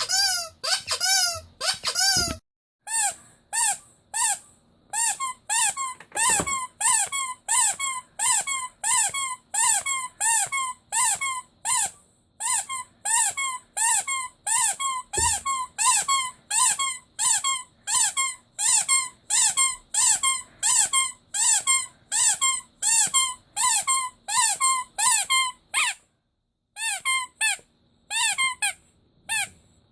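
Rubber squeaky toy squeezed over and over, about two squeaks a second, each squeak rising and falling in pitch. The squeezing stops briefly near the start and again near the end.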